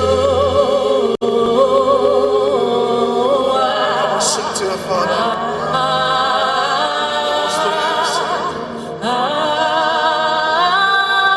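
Live gospel worship singing: voices holding long, wavering notes over musical accompaniment, with a brief dropout in the sound about a second in.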